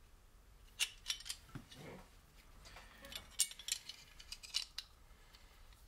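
Small metal parts handled by hand: scattered sharp clicks and clinks, a few about a second in and a cluster again around three to five seconds in, with a soft low rustle between, as the gearbox's clutch thrust bearing guide is picked up and turned over.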